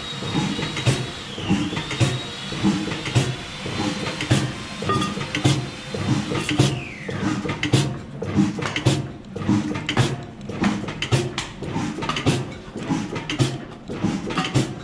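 Old engine running slowly with a regular low beat, about one and a half strokes a second, with sharp metallic clicks over it. A high tone falls in pitch about seven seconds in.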